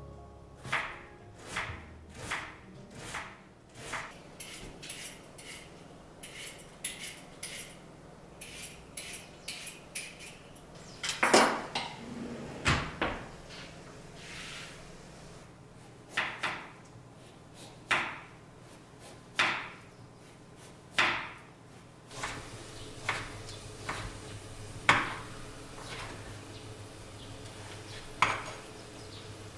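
Kitchen knife chopping an onion on a wooden cutting board in a run of quick knocks, then louder single knocks and clatters of cupboard doors and a frying pan. About two-thirds of the way in, a low steady hum begins under the knocks, fitting an induction hob switched on under the pan of diced onion.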